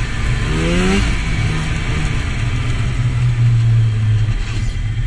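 Two-stroke snowmobile engine revving up about a second in, then running at a steady high speed under load, easing off near the end.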